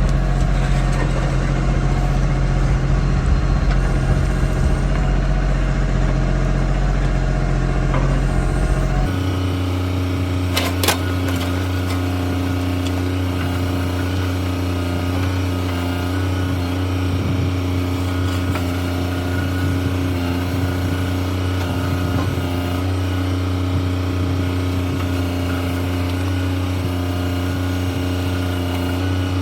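Kioti CK3510SE tractor's diesel engine running steadily under backhoe work. The engine note changes abruptly about nine seconds in, and a single sharp knock comes shortly after.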